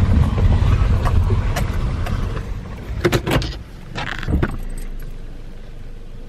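Car road noise heard from inside the cabin: a low rumble of engine and tyres that fades as the car slows down. A few sharp clicks and rattles come about three seconds in and again about a second later.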